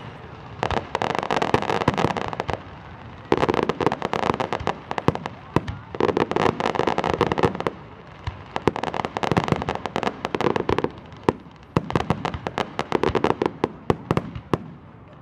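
Fireworks display: rapid bangs and crackling shell bursts, coming in waves of about two seconds with brief lulls between them.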